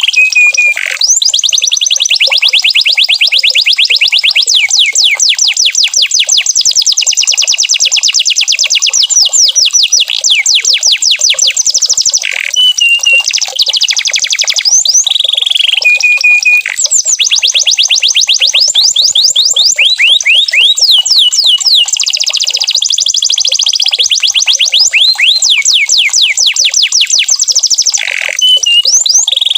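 Domestic canary singing loudly: long, rapid trills of repeated high sweeping notes. The song switches to a new trill every few seconds.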